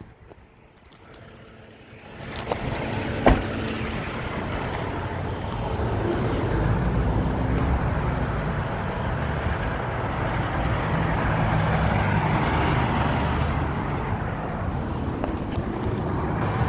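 Freeway traffic noise with the steady low rumble of truck engines, muffled for the first two seconds; a single sharp knock about three seconds in.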